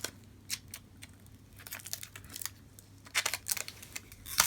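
Irregular light crinkles and clicks of thin plastic film and packaging being handled, thickest in the second half.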